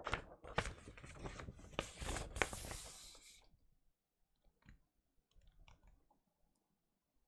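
A large folded paper poster rustling and crackling as it is unfolded and handled, with many sharp crinkling clicks for about the first three and a half seconds. After that there are only a few faint handling ticks.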